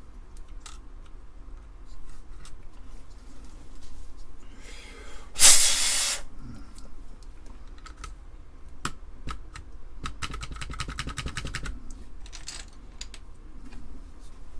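Plastic keycaps being pushed onto an Amiga keyboard's key switches: scattered sharp clicks and taps. A brief loud noisy rush comes about five and a half seconds in, and a quick run of rattling clicks about ten seconds in.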